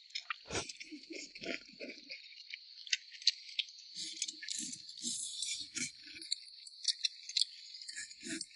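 Insects chirping steadily as a high background drone, thickening about halfway through, with scattered sharp clicks and short soft low sounds over it.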